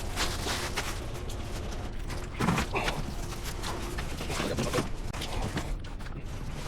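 Bags and gear being handled and set down: irregular thumps, knocks and rustling, with footsteps, and a louder pair of thumps about two and a half seconds in.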